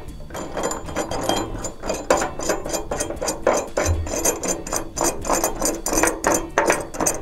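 Brass lock nut spun by hand up a threaded faucet shank against a metal mounting bracket, with a steady run of quick, irregular metallic clicks and rattles as the nut and bracket knock together while it is hand-tightened.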